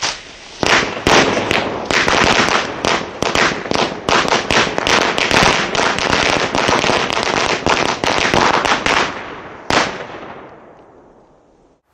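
A string of firecrackers going off in a rapid, irregular chatter of loud cracks for about nine seconds. One last bang comes near the end, and then the sound dies away.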